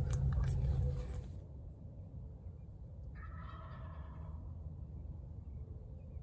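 A wild turkey gobbler gobbles once, for about a second, about three seconds in: a tom answering a hunter's call. Before it, a low rumble with a few clicks fills the first second or so.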